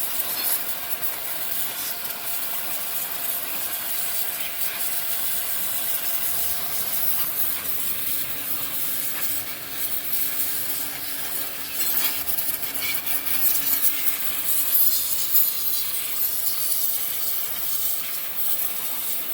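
Suzuki 250 motorcycle drive chain running over its sprockets with a steady dry rasping, its dirt washed off with diesel but not yet lubricated.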